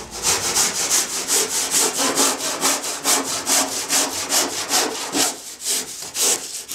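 SharpTooth handsaw cutting through a polyurethane foam surfboard blank, trimming out the nose along the drawn outline. It makes quick, even back-and-forth strokes, about two to three a second, and stops suddenly near the end.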